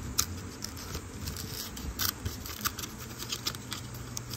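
Thin cardboard packaging and a clear plastic capsule being pulled and torn apart by hand, with scattered crackles and sharp clicks.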